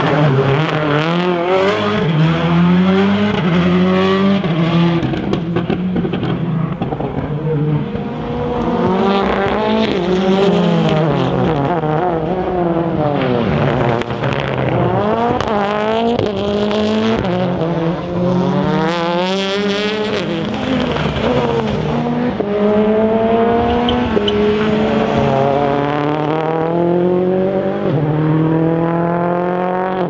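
Rally cars' engines driven hard through corners, each rising in pitch under acceleration and dropping at the gear changes and lifts, one car after another, with some tyre squeal.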